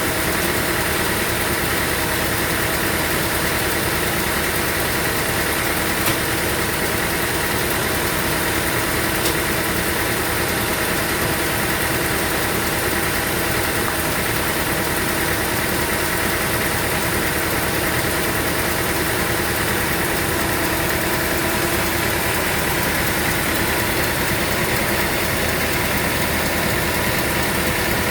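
Sawmill engine running steadily at an even speed, with a steady hum and whine that does not change. There are a couple of faint clicks about a third of the way in.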